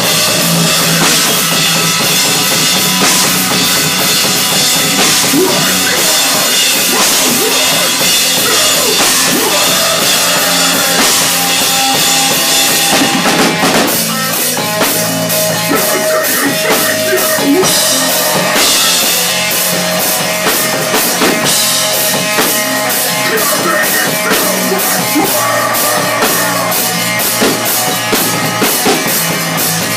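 Hardcore band playing live and loud in a small room: pounding drum kit with bass guitar and the rest of the band, the song moving into a new part about fourteen seconds in.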